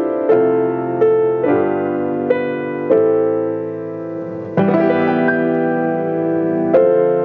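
Chickering grand piano playing a holiday hymn in slow, sustained chords, a new chord struck every half second to a second. One chord is left to fade for over a second before a loud chord about four and a half seconds in.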